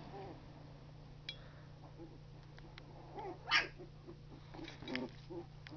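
Two-week-old Labrador retriever puppies making short squeaks and grunts as they squirm together, with one louder cry about three and a half seconds in. A steady low hum runs underneath.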